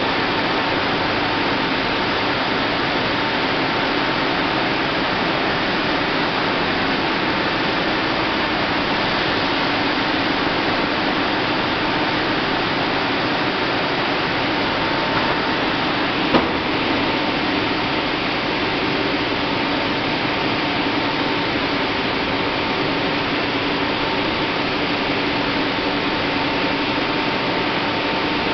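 Aseptic filling line machinery running during the bag fill: a steady, even rushing hiss with faint steady hums underneath, and one short click about sixteen seconds in.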